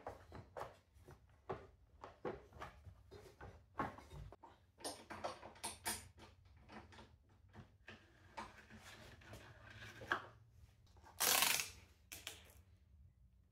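Irregular clicks, taps and rattles of hand tools and plastic parts as the plastic engine cover is worked off a Troy-Bilt TB230 lawn mower, with a brief loud rasp about eleven seconds in.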